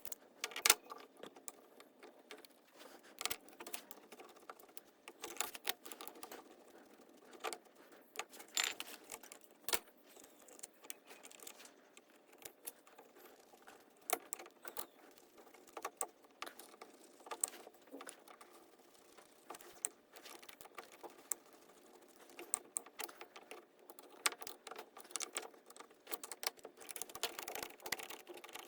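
Small metal parts of a two-barrel Holley carburetor being handled during reassembly: irregular clicks, taps and clinks, with a few sharper knocks.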